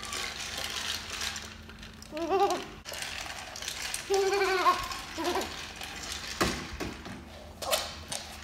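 Electronic treat ball rolling and knocking about on a wooden floor with a plastic clatter and rattle. Short high-pitched cries come about two seconds in and again around four to five seconds, and there is a sharp knock near the end.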